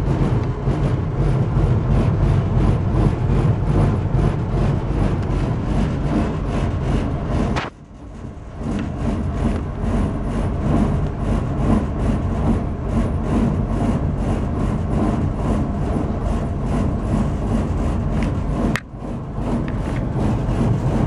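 Home furnace running with a loud, rough, rasping noise. The sound dips sharply twice, about eight and nineteen seconds in, and builds back up each time.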